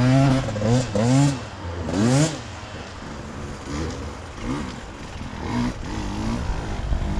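Enduro dirt bike engine revving in quick rising-and-falling throttle blips, loud for about the first two seconds. After that it goes quieter, with fainter blips through the rest.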